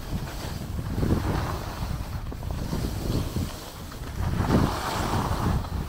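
Wind buffeting the microphone of a handheld DJI Pocket 2 during a downhill ski run, mixed with the hiss of skis on packed snow. The noise swells twice, about a second in and again about four and a half seconds in.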